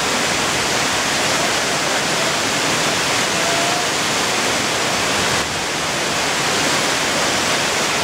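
Waterfall cascading over rocks into a pool, a steady dense rushing of falling water.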